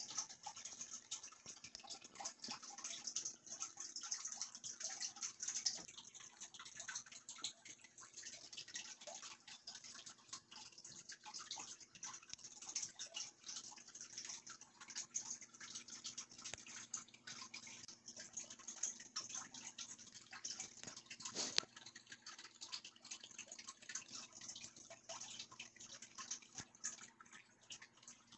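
Faint irregular rustling and small clicks of handling noise, with one sharper click about 21 seconds in, over a faint steady hum.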